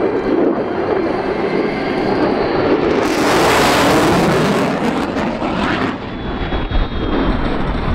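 Military jet making a low pass: a steady engine rumble, with a loud hissing rush that swells about three seconds in and dies away by about six seconds as the jet goes by.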